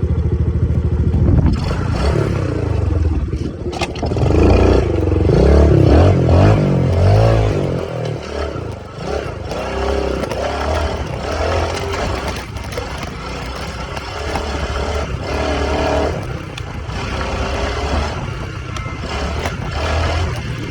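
Dirt bike engine running and revving, its pitch rising and falling with the throttle, loudest about four to eight seconds in.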